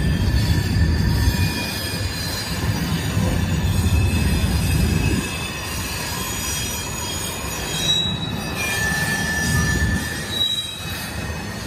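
Freight cars of a potash train rolling across a steel rail bridge: a continuous low rumble of wheels on rail, with thin high-pitched wheel squeals coming and going. The rumble eases about five seconds in.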